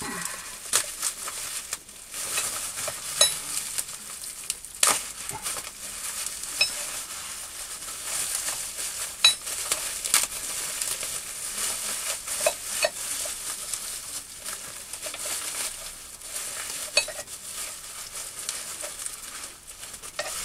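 Bubble wrap and clear plastic wrapping crinkling and rustling as it is pulled off by hand. Sharp clicks come now and then.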